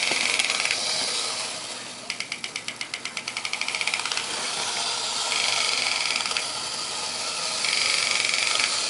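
The clockwork mechanism of a vintage Marx wind-up tiger toy running: a high whirring that comes and goes in spells, with a run of rapid even clicking about two seconds in. The clicking is meant to resemble the tiger's growl.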